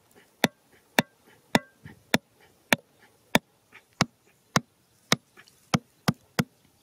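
Hammer striking the top of a bamboo stake, driving it into the ground: a steady run of sharp knocks, about two a second.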